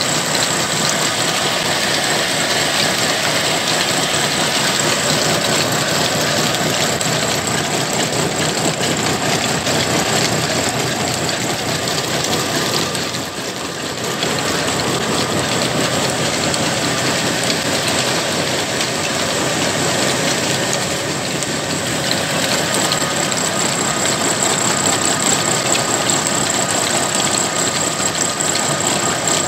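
Old 25 hp diesel engine running steadily under load, driving line shafts, flat belts and pulleys that power a cotton-processing machine: a dense, continuous mechanical clatter with a steady whine.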